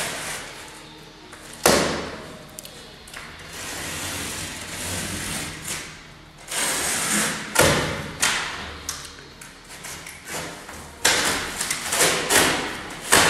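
Refrigerator packaging being cut open with a knife and pulled about: scraping and rustling of cardboard and wrap, broken by sharp thumps. The loudest thumps come about two seconds in, near the middle, and at the end.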